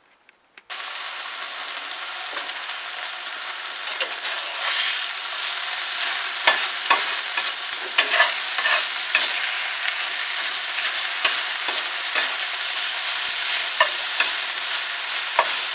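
Minute steak and vegetables frying in a cast-iron skillet: a steady sizzle that starts abruptly under a second in and grows louder partway through, with a metal spatula repeatedly scraping and clicking against the pan as the meat is stirred.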